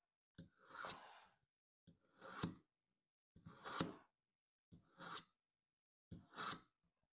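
Five strokes of a steel kitchen knife blade drawn through a Smith's mini pocket knife sharpener, each a short scrape about half a second long, spaced about a second and a half apart. The dull blade is being sharpened and its burr smoothed out.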